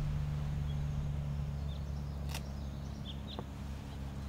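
Quiet outdoor ambience with a steady low hum, a few short high chirps, and one sharp click a little past halfway.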